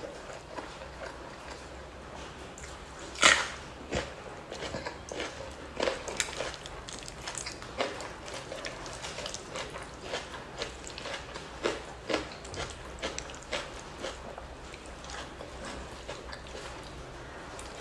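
Close-miked eating sounds: chewing mouthfuls of rice and fish skin in curry sauce, with many short, wet mouth smacks and clicks, the loudest about three seconds in.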